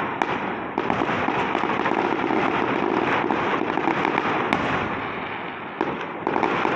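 Aerial fireworks shells bursting in a dense, continuous barrage of bangs and crackle, with a sharp crack about four and a half seconds in and a fresh surge of bursts near the end.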